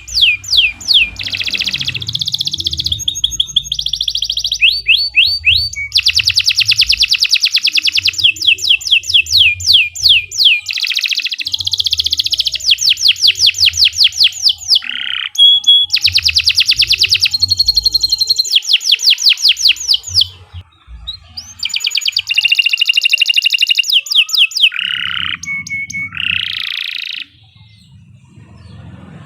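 Domestic canary singing a long, loud song of rapid trills and rolls of repeated high notes, broken by a short pause about two-thirds through and another near the end.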